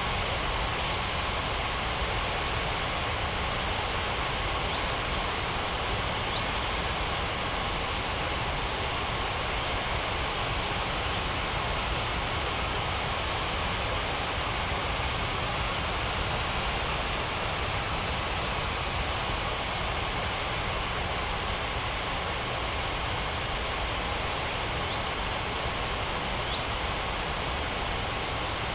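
Steady roar of an Airbus A330's jet engines, an even rush of noise with a faint whine held at one pitch.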